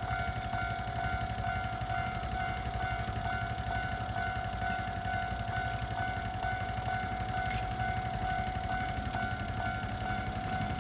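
Railway level-crossing warning bell ringing steadily, one held ringing tone, over a continuous low rumble.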